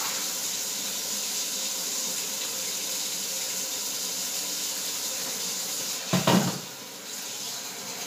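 Water running steadily from a tap. About six seconds in there is a brief thump, after which the running water is quieter.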